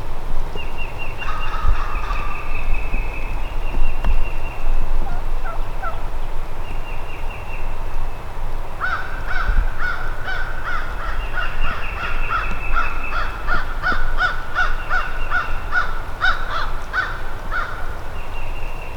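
Wild turkeys calling: a gobble about a second in, then a long run of quick repeated yelps in the second half.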